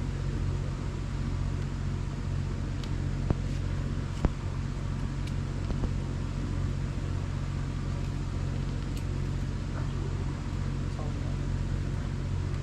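Boat engine running steadily with a low hum, with two sharp knocks a few seconds in.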